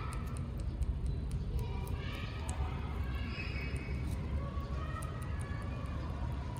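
Outdoor background noise: a steady low rumble with faint, indistinct voices now and then, and small scattered high clicks.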